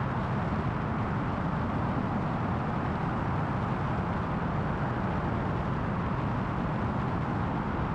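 Ultralight aircraft's engine and propeller droning steadily in cruising flight, mixed with wind rushing over a camera mounted outside on the wing strut.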